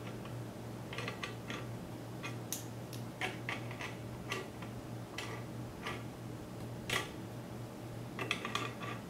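Pliers gripping and turning the metal mounting screws on a computer water-cooling radiator: irregular small metallic clicks, over a steady low hum.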